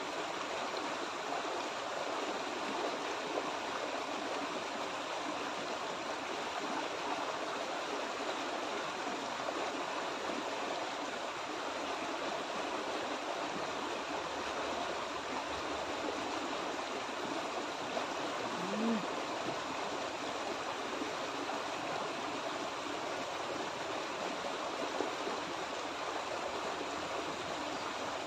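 Small rocky stream rushing over a low cascade of rocks: a steady, even sound of running water.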